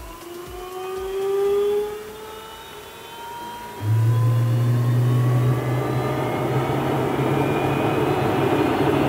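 Jet engine starting: a rising whine as the turbine spools up, then, about four seconds in, a sudden louder rush with a steady low hum as the engine runs up.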